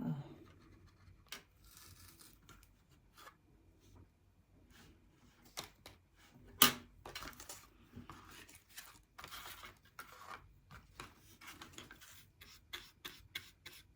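Hands working at a stiff craft paint container: scattered small clicks, taps and rustles, with one sharp snap about seven seconds in.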